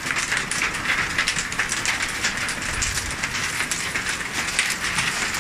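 Heavy downpour drumming on corrugated plastic roof sheets, a dense, even patter of countless small hits.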